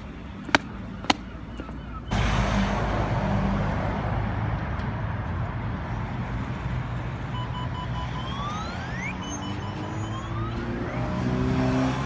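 Two footsteps on stone paving, then from about two seconds in steady road traffic beside a bus, its diesel engine running with the pitch rising near the end as it pulls away. A few short beeps and rising whistles come through in the second half.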